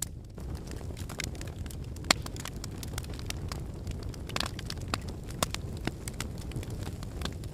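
Wood fire burning in a fireplace: a steady low rumble of flames with irregular sharp crackles and pops, one louder pop about two seconds in.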